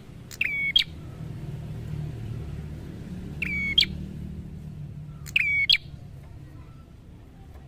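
Prenjak singing: three short, sharp, high-pitched call phrases, each a quick run of notes, about two seconds apart, over a low steady hum.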